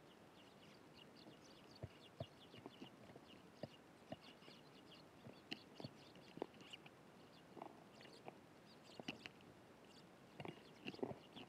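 Eurasian tree sparrows chirping faintly and often in short high notes, mixed with scattered soft taps and clicks that cluster near the end.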